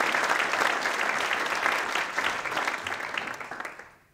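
Audience applauding at the end of a talk, a dense patter of clapping that fades out near the end.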